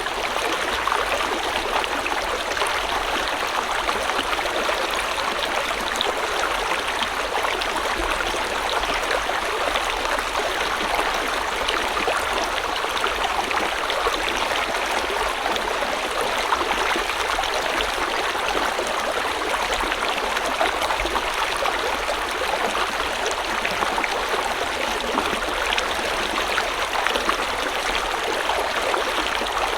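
River water flowing steadily over rocks, a continuous rushing and burbling with no change in level.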